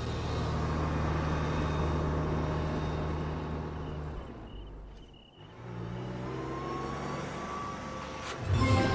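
Car engine running low and steady as the car rolls up to a gate, fading briefly about halfway through before it returns. Near the end it turns louder.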